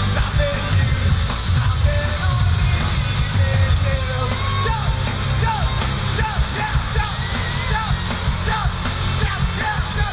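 Live rock band playing loud, steady rock with electric guitars.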